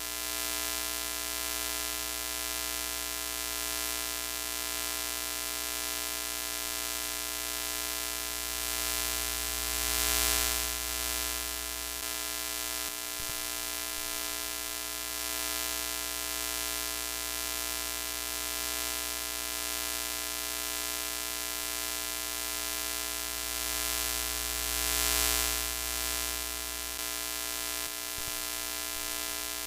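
Broken-TV static sound effect: a steady hiss of static over an electrical buzz, swelling slightly twice.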